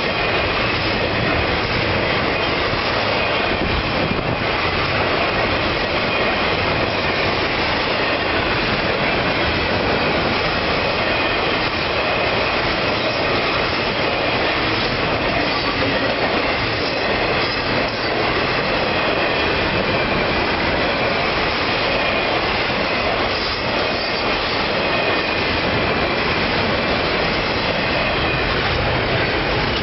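Norfolk Southern intermodal freight train's cars rolling past at track speed: a steady rumble and rattle of steel wheels on rail, with a thin high wheel squeal running through it.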